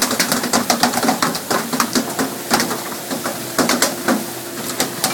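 Deck noise during tuna pole-and-line fishing: sea water splashing and hissing under a steady wash, with frequent sharp knocks and slaps.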